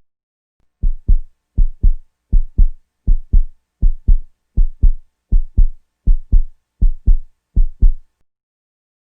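Heartbeat sound effect: about ten deep double thumps (lub-dub), evenly spaced at roughly 80 beats a minute.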